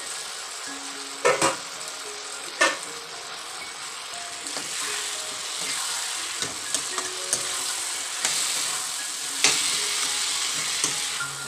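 Taro greens sizzling as they fry in a kadai, stirred with a metal ladle. The ladle knocks sharply against the pan a few times, loudest in the first three seconds and again near the end.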